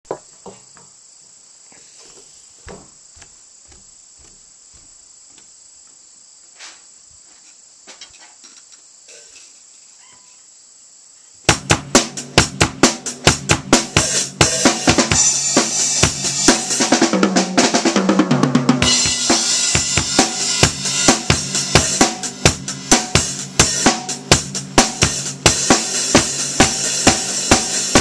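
Pearl acoustic drum kit: quiet at first with a few faint clicks, then about eleven seconds in a loud beat starts on kick, snare, hi-hat and cymbals. A run of tom strokes falls in pitch a few seconds later.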